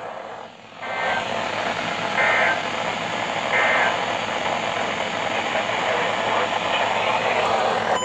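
Weather alert radio receiving a noisy broadcast: a steady static hiss, with three short bursts of data tones about a second and a half apart in the first four seconds, typical of the EAS/SAME header sent before an alert.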